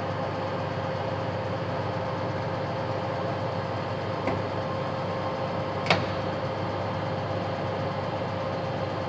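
Harrison M350 centre lathe running, its motor and geared headstock giving a steady hum with a constant whine. A light click comes a little past four seconds in and a sharper, louder click about six seconds in.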